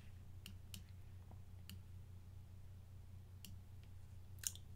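A handful of faint, irregularly spaced computer mouse clicks, the last one the loudest, over a low steady hum.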